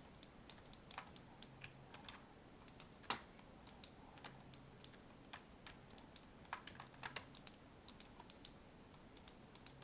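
Faint, irregular clicking of computer keyboard keys as modelling shortcuts are typed, a few presses louder than the rest.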